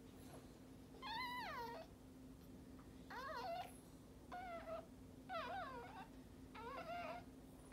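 Newborn Maltese puppy crying: five short, high-pitched, wavering squeals, about one a second.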